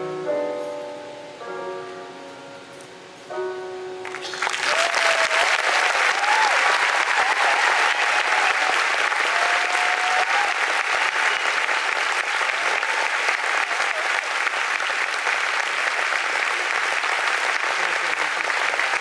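Piano playing the last soft closing chords of a song, fading away, then an audience bursting into loud, steady applause about four seconds in.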